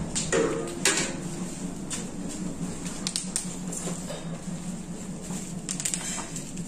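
Scattered light clinks and knocks from a steel milk pail being carried, along with footsteps on concrete, over a steady low hum.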